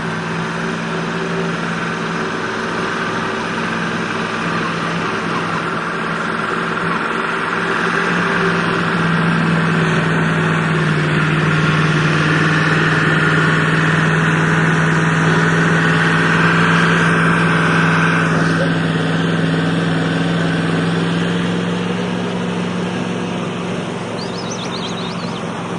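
Heavy Ural truck's engine running steadily under load as it pushes through rushing water, over the constant rush of waves and current. The engine grows louder from about eight seconds in as the truck climbs out onto the bank, and eases off again near twenty seconds.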